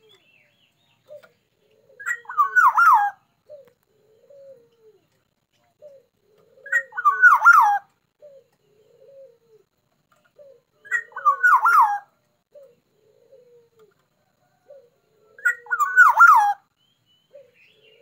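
Caged black-naped oriole singing: four short, loud phrases of fluty whistles, each about a second long and repeated every four to five seconds.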